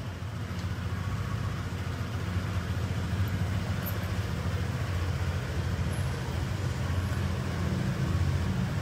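Honda PCX scooter's single-cylinder engine idling, a steady low hum.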